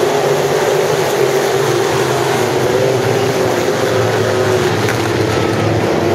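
A field of sport modified dirt-track race cars with V8 engines running laps at racing speed. The engines blend into one steady, loud sound whose pitch wavers slightly as the cars pass and go around the turns.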